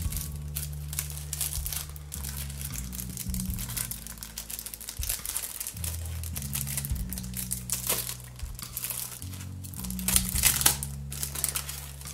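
Crinkling and rustling handling noise with many short, sharp crackles, busiest near the end, over slow background music of sustained low chords.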